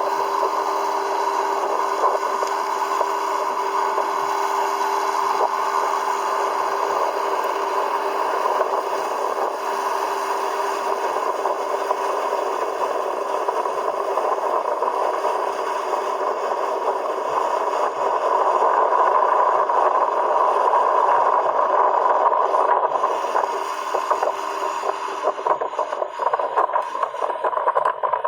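Small outboard motor on a jon boat running steadily under way, with hull and water noise. It gets a little louder for a few seconds about two-thirds of the way through, then turns uneven near the end.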